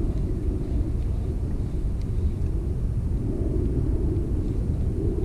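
Wind buffeting the microphone: a steady low rumble with no distinct tones.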